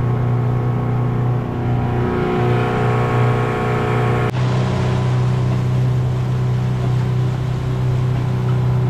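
Boat's outboard motor running at a steady speed, with a sudden change in its tone a little over four seconds in.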